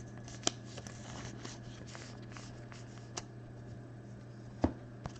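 Cardboard trading cards being handled and slid against one another, with a few sharp clicks about half a second in, around three seconds and near the end, over a steady low hum.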